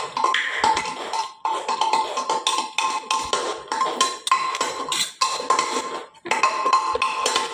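Metal utensils clattering and scraping against plates during a meal: a quick, irregular run of clinks and knocks, with a steady ringing tone beneath.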